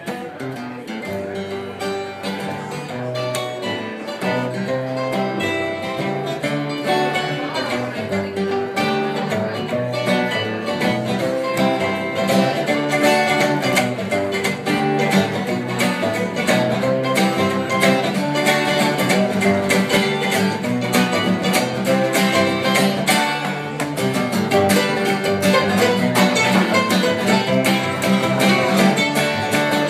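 Acoustic string band playing live: acoustic guitar strummed and mandolin picked quickly, with a double bass underneath. The music grows louder over the first several seconds, then holds steady.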